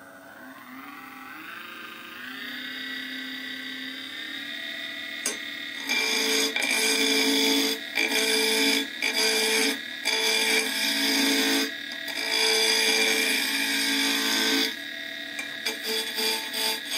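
Red Arrow wood lathe starting up, its motor whine rising in pitch over the first few seconds and then steady. From about six seconds in, a wide flat chisel cuts the spinning wooden blank round in repeated passes. The loud cutting noise comes and goes every one to two seconds.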